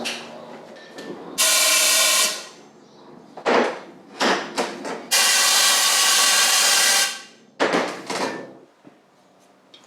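A pressurised jet hissing in several bursts, the longest about two seconds, with short sharp spurts between them.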